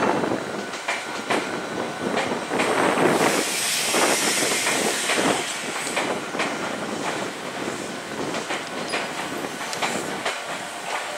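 Meitetsu 3500-series electric train, coupled with a 3100-series set, pulling slowly out of the station, its wheels clacking over rail joints. A hiss rises for a couple of seconds about three seconds in.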